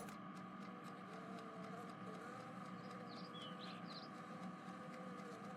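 Faint steady background hum, with a few faint high chirps about three to four seconds in.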